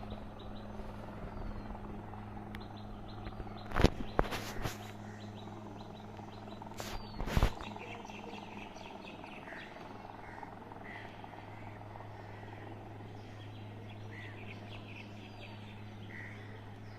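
Birds calling repeatedly, in short calls through the second half, over a steady low hum. A few sharp knocks sound about four seconds and seven seconds in, the second the loudest thing here.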